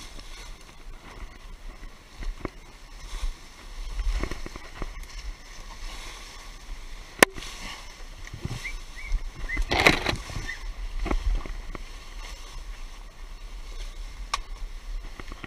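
Rustling and handling noise from someone moving through scrub, over a steady low rumble. A single sharp click comes about seven seconds in, and a louder burst of rustling with a few short high chirps comes around ten seconds in.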